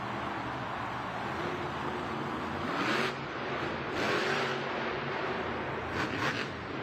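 Son-uva Digger monster truck's engine running hard through a steady loud drone, with brief revs that swell and glide in pitch about three, four and six seconds in.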